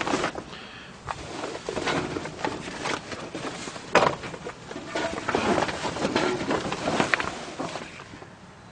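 Canvas grill cover rustling and scraping as it is pulled back by hand, with irregular knocks and handling noise from the phone being jostled. The sharpest knock comes about four seconds in.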